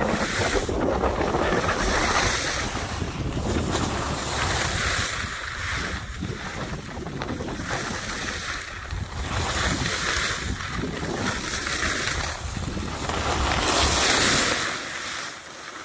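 Wind rushing over the microphone while skiing downhill, with skis scraping across packed snow in swells every second or so as they carve turns. The noise drops near the end as the skier slows.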